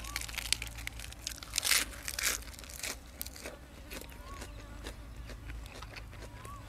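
A person eating close to the microphone: crunchy bites and chewing, with a louder crunch about two seconds in.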